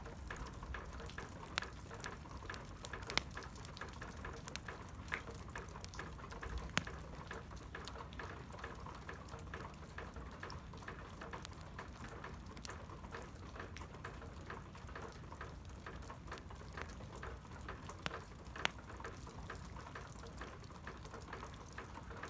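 Wood campfire crackling: a steady hiss broken by scattered sharp pops, a few of them loud.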